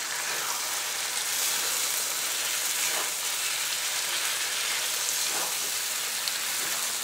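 Chicken and thick masala sizzling steadily in a hot black wok while a spatula stirs it, with a couple of faint scrapes. This is the dry-roasting stage of chicken chukka, the gravy being fried down as the curry finishes.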